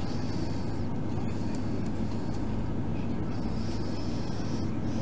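Steady low rumbling hum of background noise at an even level, with faint high thin squeaks twice.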